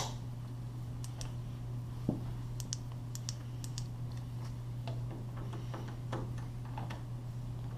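Scattered light clicks and ticks of a screwdriver working a sliding door's roller height-adjustment screw, over a steady low hum.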